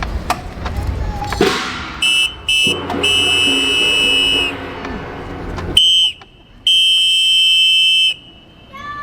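A shrill whistle blown in several long, steady blasts that start and stop sharply, over a low hubbub from the crowd.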